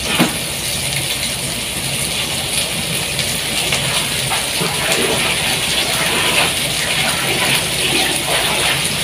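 Kitchen tap running steadily into a plastic basin as leafy greens are rinsed under the stream.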